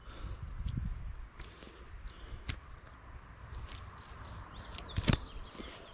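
Steady high-pitched insect trilling, with low handling rumble in the first second, a few faint ticks, and one sharp click about five seconds in.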